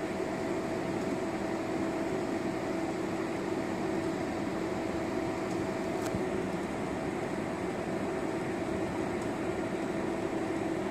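Steady mechanical hum, like fan or air-conditioning equipment, with a low and a higher steady tone held throughout and no change in level.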